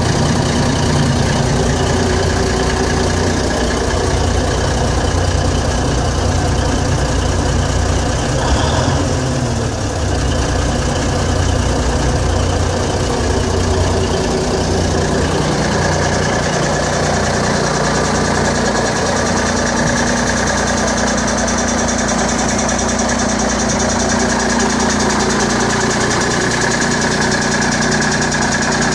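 Cummins 350 Small Cam diesel truck engine of a Crane Carrier drill-rig carrier idling steadily.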